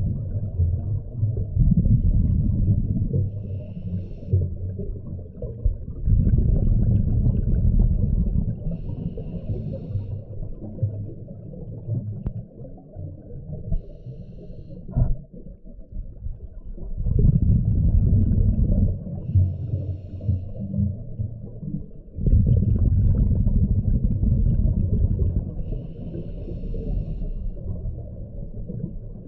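A scuba diver's regulator heard underwater: exhaled bubbles rumble in bursts a few seconds long, about four times, with quieter gaps between that hold faint short hisses of inhalation.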